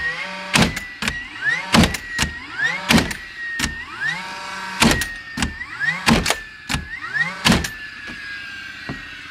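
Cordless battery-powered framing nail gun firing nails into 2x6 truss lumber in a quick series, about a dozen shots. Each sharp bang is preceded by the short rising whine of its motor spinning up.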